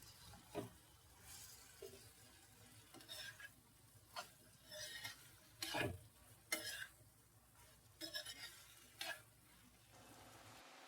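Spoon or spatula stirring food in a pan: a string of short scrapes and knocks against the pan, the loudest about six seconds in.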